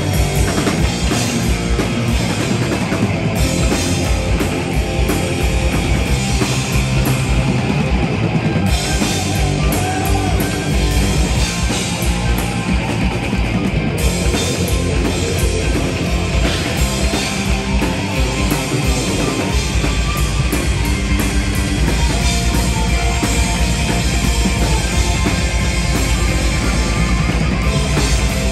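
Heavy metal band playing live, instrumental with no singing: electric guitars, bass guitar and drum kit, loud throughout. About two-thirds of the way through, the low end thickens into a fast, steady drum pulse.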